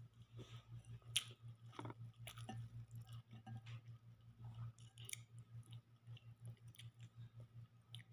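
Faint chewing and mouth sounds of a person eating rice and chicken by hand, with scattered short clicks as fingers work the food in a glass bowl, the sharpest about a second in. A steady low hum runs underneath.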